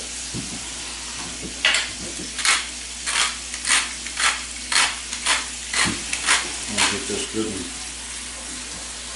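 Beef tongue pieces sizzling steadily in butter in a frying pan. From about two seconds in until about seven seconds in, a pepper mill is turned over the pan in about a dozen evenly spaced strokes, roughly two a second.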